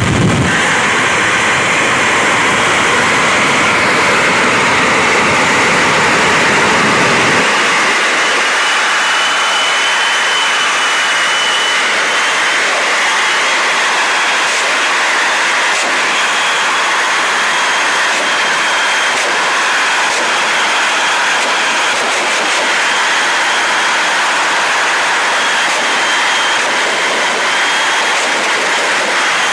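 The Shockwave jet truck's three jet engines running, a loud steady roar. About seven seconds in the deep low rumble drops away, leaving a hissing roar with a thin high whine.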